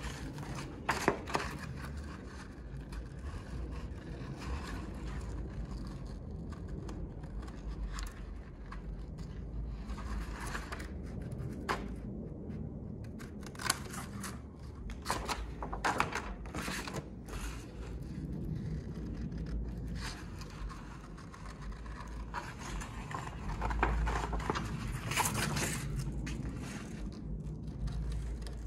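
Hand scissors snipping through a large sheet of white paper template stock, in irregular runs of cuts with short pauses between.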